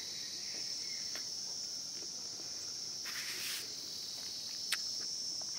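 Insects chirring in a steady, high-pitched drone, with a brief scratchy sound about three seconds in and a few faint clicks.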